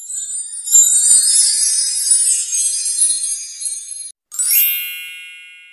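Edited intro sound effects: about four seconds of high-pitched sparkly twinkling, then after a brief break a rising swish into one bright chime that rings and fades away.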